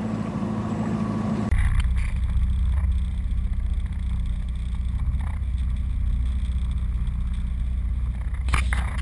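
Outboard motor of a small fibreglass skiff running steadily while the boat is under way. About a second and a half in, the sound turns into a deeper, louder rumble heard from low in the hull, with a couple of sharp knocks near the end.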